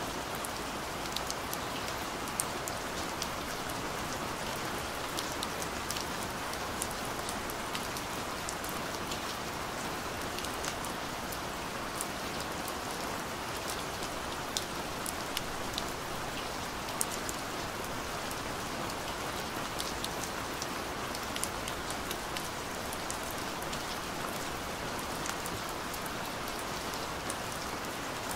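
Steady recorded rain: an even hiss with many scattered, sharp drop ticks.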